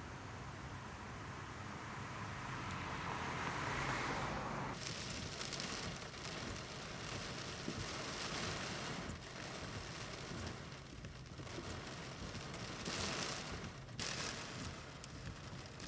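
Thunderstorm wind and heavy rain: a steady rushing noise, with wind buffeting the microphone. The noise changes abruptly about five seconds in and again near the end.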